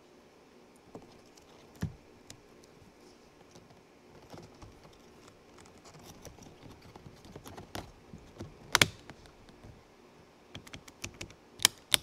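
Scattered plastic clicks and knocks as a second-gen RX-7 power window master switch and its wiring plug are handled and pressed into the door armrest panel. The loudest are a sharp double click about three-quarters of the way in and another sharp click near the end.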